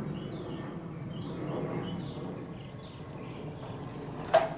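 Small birds chirping in short repeated calls over a low steady background rumble, with one sharp click and a brief metallic ring near the end.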